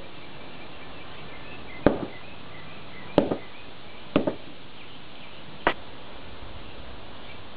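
Short-handled sledgehammer striking C batteries on concrete pavement: four sharp, separate blows about one to one and a half seconds apart.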